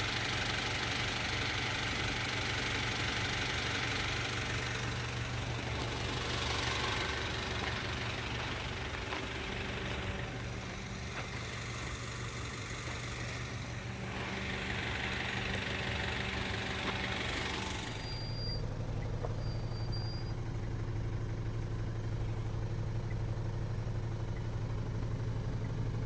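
Car engine and road noise heard from inside a car, a steady low engine hum under swells of rushing noise that ease off about eighteen seconds in, leaving the engine hum alone.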